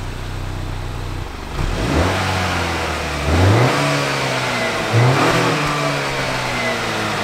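Exhaust of a 2020 Acura RDX A-Spec's K20C4 2.0-litre turbocharged four-cylinder engine, heard from behind the car: it idles, then is revved three times about every second and a half, settling back between blips.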